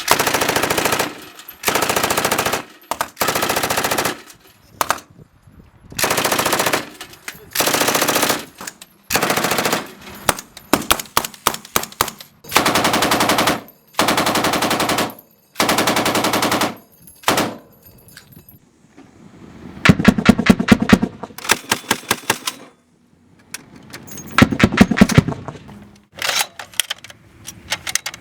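Automatic gunfire in a dozen or so short bursts of about a second each, separated by brief pauses. In the later bursts the single shots come slower and stand apart.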